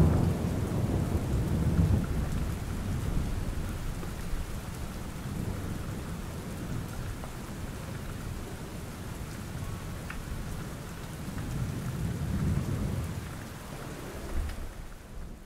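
Thunderstorm ambience: rain with rolling thunder, loudest at the start, swelling again about twelve seconds in, then fading out near the end.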